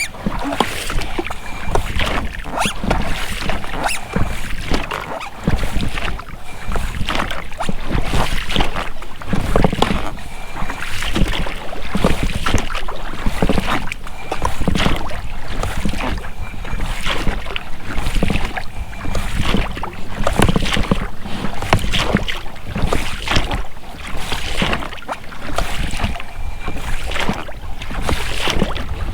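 Oars rowing an inflatable boat: blades splashing and dripping in the water, with the rubber rowlocks working on each stroke, in a steady repeating rhythm.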